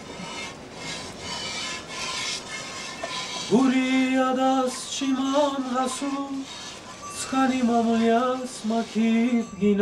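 Milk squirting in short rhythmic streams into a metal pail as a cow is milked by hand, about two or three squirts a second. About three and a half seconds in, a single voice starts singing a slow unaccompanied song in long held notes.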